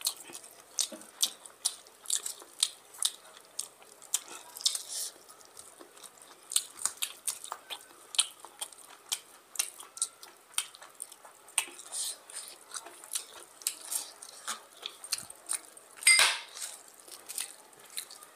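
Close-miked eating sounds: fingers mixing and squeezing rice with oily curry, and chewing with lip smacks, heard as a steady run of short, sharp clicks and smacks. A louder crackle comes about sixteen seconds in.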